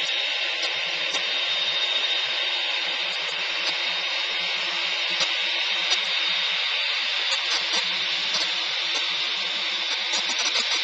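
Boeing 747-8's four GEnx-2B turbofan engines at taxi power as the jet turns onto the runway: a steady high-pitched whine over a rushing hiss.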